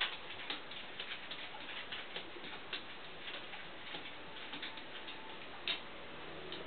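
Irregular light clicking and tapping, a few clicks a second with one sharper click near the end: a small dog's claws on a hard floor as it dances about on its hind legs.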